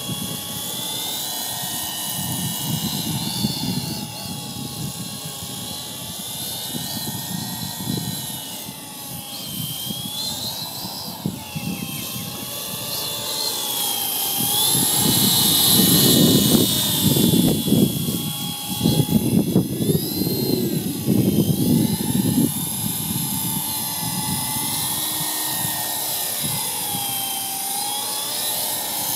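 MJX F49 brushless fixed-pitch RC helicopter flying: a motor-and-rotor whine that drifts up and down in pitch as the throttle changes. Gusty wind buffets the microphone under it, strongest about halfway through.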